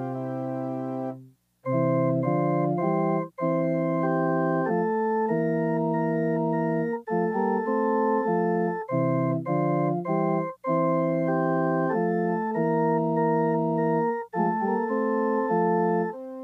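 Organ playing sustained chords in a slow, hymn-like succession, the chords held level and separated by short breaks between phrases.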